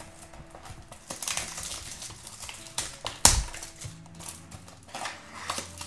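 Small cardboard surprise box handled and turned in the hand: fingers rubbing and tapping on the carton, giving scattered light clicks, with one sharper knock about three seconds in.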